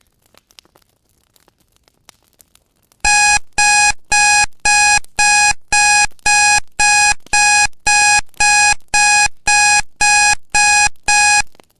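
Loud electronic alarm-clock beeping, about two beeps a second, starting about three seconds in: the timer alarm marking the end of a pomodoro study session. Faint fireplace crackle before it.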